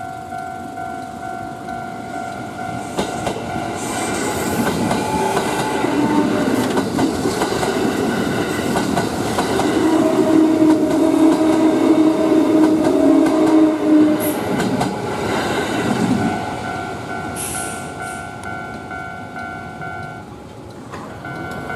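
Japanese level crossing warning bell ringing steadily as an electric commuter train passes through the crossing, its wheels clattering over the rail joints. The train noise builds, is loudest about halfway through, and dies away about three-quarters of the way in, while the bell keeps ringing.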